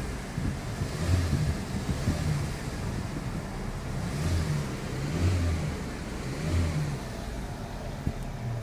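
A car being driven, with engine and road noise. The low engine note swells and eases about five times as the car accelerates and lifts off, in a car whose owner reports a grinding noise under acceleration.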